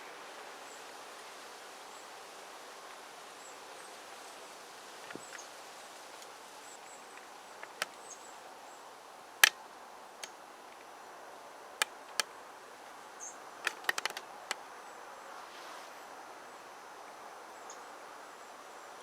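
Outdoor backyard ambience: a steady faint hiss with sharp clicks and snaps scattered through it. The loudest click comes about halfway, and a quick run of clicks follows a few seconds later. There are a few faint, short high chirps.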